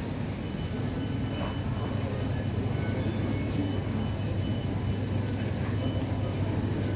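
Steady low hum and rumble of an underground metro station concourse, with faint high tones now and then.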